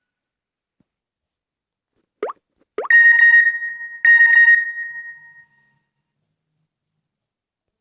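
A Nokia 2630 ringtone played through a Samsung Galaxy S4's speaker. About two seconds in come two short plops that rise in pitch, then two bright, bell-like tones about a second apart, the second fading out.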